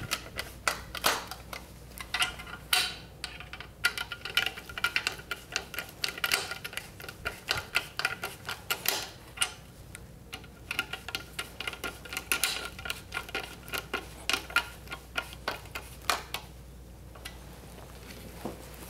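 Phillips screwdriver turning screws into a plastic bracket on an aluminium tube: irregular clicks and ticks, with a couple of short pauses.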